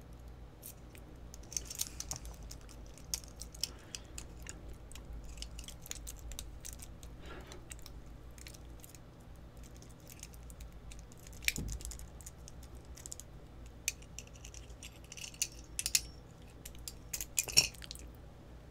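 Small metal clicks, taps and light rattles of a lock cylinder and a steel pick being handled and worked while the lock is taken apart. A duller knock comes about two-thirds of the way through and the sharpest click near the end, over a faint steady hum.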